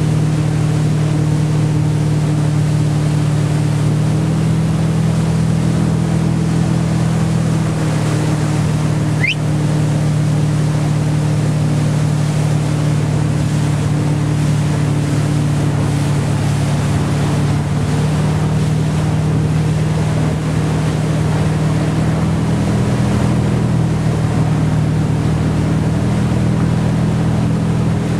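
Wakeboard tow boat's engine running steadily at speed, a low drone, with the rush of the wake and wind over it. A brief rising squeak about nine seconds in.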